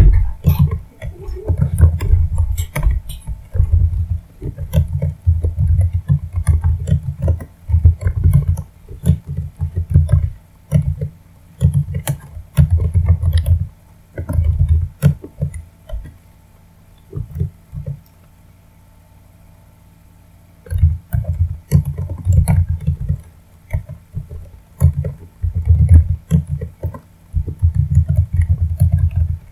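Computer keyboard typing in irregular bursts, each keystroke a short click over a dull low thump. The typing stops for a few seconds just past the middle.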